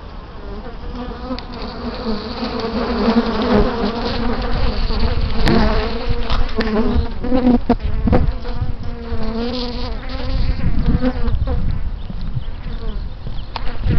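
Honeybees buzzing loudly right at the microphone, many wings at once with the pitch wavering as bees fly in close around the camera, getting louder over the first few seconds; a few brief sharp taps stand out. The bees are agitated by the close-up camera.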